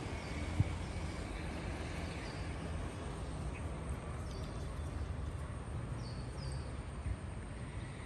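Steady outdoor background noise with a low rumble, and a few faint, short, high bird chirps. A single faint click comes about half a second in.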